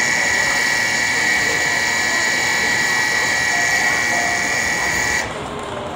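Tokaido Shinkansen platform departure bell ringing steadily and loudly, signalling that the train is about to leave. It cuts off suddenly about five seconds in.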